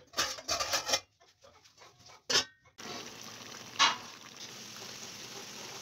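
A few short knocks in the first second and another at about two and a half seconds. Then chicken wings simmering in their marinade in a pot on the stove, a steady bubbling hiss, with one sharp click about a second after it begins.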